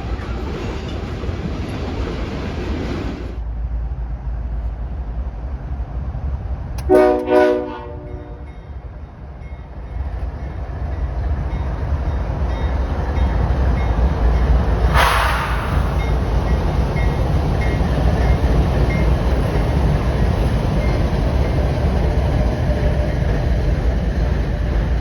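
Locomotive air horn giving two short blasts about seven seconds in, a crew's horn salute, over the rumble of a passing train. The train rumble grows louder through the second half, with a brief rush of noise near fifteen seconds.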